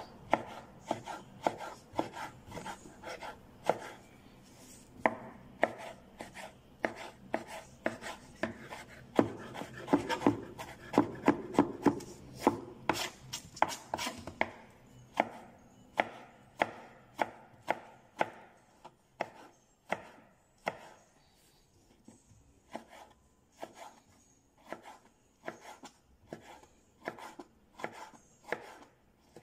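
Kitchen knife dicing tomatoes on a cutting board: a steady run of sharp chops, roughly one to two a second.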